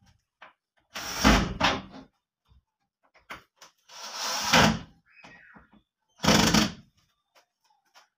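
Hinged wooden wardrobe doors being swung and shut three times, each time lasting under a second, as the doors are tried out with their newly fitted handles.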